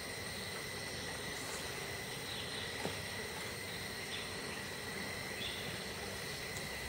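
Steady chorus of insects: several constant high-pitched drones over a hiss. There is one short click about three seconds in.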